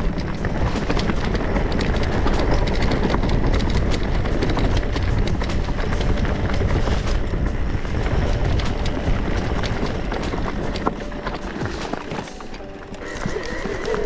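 E-mountain bike riding over rough trail: tyres rumbling and the bike rattling and clattering with a constant run of clicks and knocks over a heavy low rumble. It eases off briefly about twelve seconds in.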